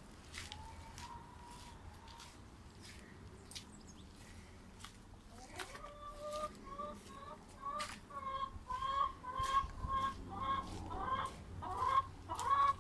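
Chicken clucking: a run of short calls about two a second that grows louder toward the end, with scattered sharp clicks.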